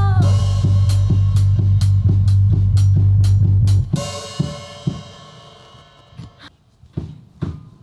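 Live rock band of electric guitar, electric bass and drum kit playing loudly, then stopping together on a final hit about four seconds in and ringing out. Near the end, single drum hits tap out a steady beat about twice a second.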